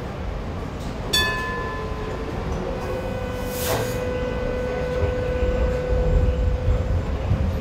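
Kawasaki-built light rail train running, heard from on board: a steady low rumble of wheels on the track. About a second in comes a short ringing ding that fades within a second. From about two and a half seconds a steady whine holds, with a brief hiss in the middle.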